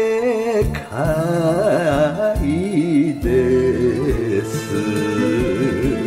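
Enka song music: a wavering melody with strong vibrato over a band backing with a steady low bass beat.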